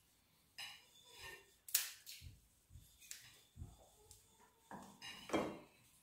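Kitchen scissors snipping through the shells of whole raw prawns as they are cleaned: a few sharp snips, with soft knocks and rustling handling of the prawns on a plastic cutting board.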